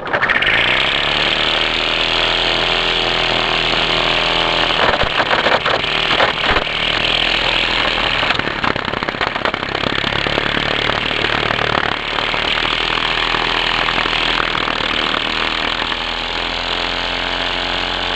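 Weed Eater string trimmer running steadily at high speed, with a stretch of irregular crackling in the middle as the spinning line cuts into weeds and gravel.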